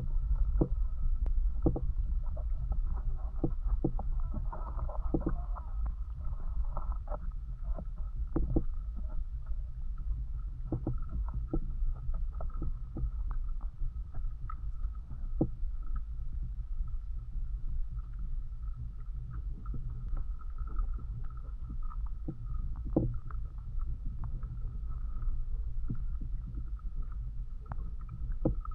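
Steady low rumble of wind and handling on a walking camera's microphone, with scattered light clicks and knocks and a faint steady high tone behind.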